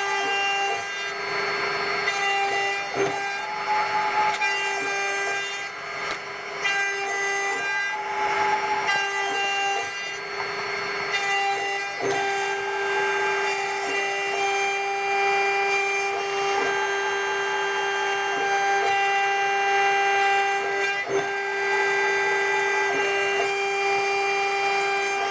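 Desktop CNC milling machine's high-speed spindle whining steadily at 24,000 rpm while the cutter mills D16 duralumin. A rasping cutting noise swells and fades several times over the first half, with a few sharp ticks.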